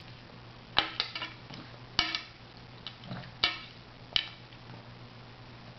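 A metal fork clinking against a child's plate, about five sharp clinks spread over a few seconds, each with a short ring.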